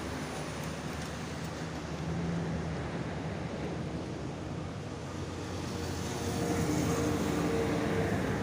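Boeing 757 jet engines heard on approach to landing, a steady noisy rumble that swells about six seconds in, with a steady hum coming through.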